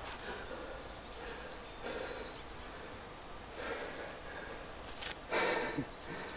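A man breathing hard and gasping, a few heavy breaths with the loudest about five seconds in.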